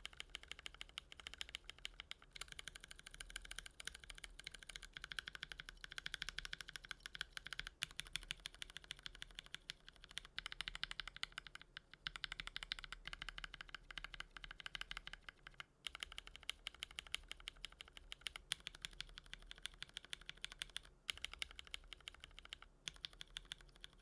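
Fast typing on a mechanical keyboard with light tactile switches, heard as a quiet, rapid run of key clacks. It comes in several takes split by brief pauses, moving from stock Cotton Candy switches to lubed Akko Ocean Blue switches to lubed Cotton Candy switches.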